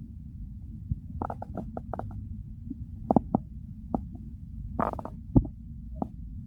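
Human stomach and intestines gurgling: a quick run of short gurgles about a second in, then scattered single pops and one longer gurgle over a steady low rumble, the sharpest pop coming about five seconds in.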